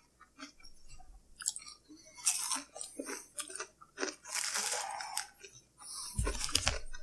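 Close-miked chewing and crunching of a BLT sandwich on toasted bread with crispy bacon, with scattered small crunches and one longer crunching bite about four seconds in.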